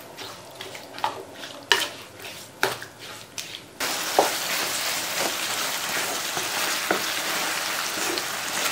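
Wooden spatula scraping and knocking in a pan of lemon pickle, salted lemon pieces in a chilli-and-oil masala, as it is stirred. About four seconds in a steady sizzle starts as the pickle heats on the relit stove and begins to cook, with a few more spatula knocks over it.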